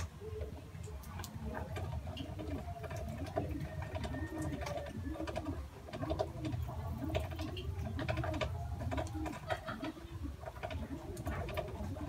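A pigeon cooing over and over, each coo a low note that rises and falls, about two a second from a couple of seconds in. Underneath are many short, sharp chirps and clicks from lovebirds pecking at moringa leaves.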